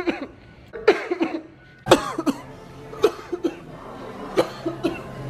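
A man coughing in four fits about a second apart, each a sharp cough followed by two or three shorter ones.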